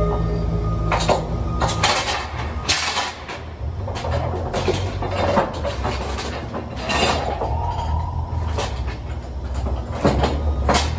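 Steel load chains clanking and rattling against a steel coil and the trailer as the load is chained down, a string of sharp metallic knocks, over a steady low hum that drops away after the first couple of seconds and returns near the end.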